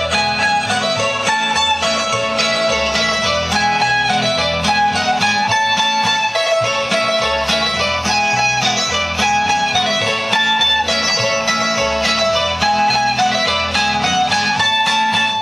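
Lively Croatian folk dance music played on plucked string instruments: a fast, picked melody that moves up and down over a steady bass beat.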